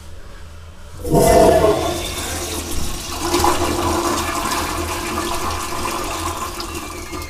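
American Standard Afwall toilet flushing: a sudden rush of water about a second in, then steady flowing. Its replacement low-consumption (LC) flush valve leaves the flush without the pressure to swirl counterclockwise as an Afwall normally does.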